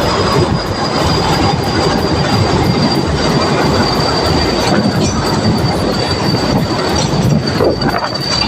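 Ooty toy train of the Nilgiri Mountain Railway running along the track: a steady rumbling clatter, with a thin, high, steady squeal of the wheels on the rails over it.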